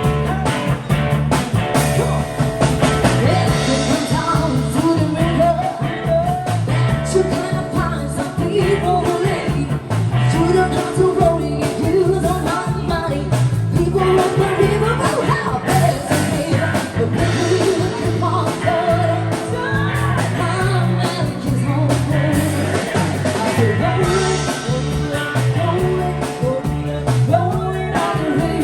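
Band playing a rock-and-roll cover with a lead singer, electric guitar and a steady driving bass line.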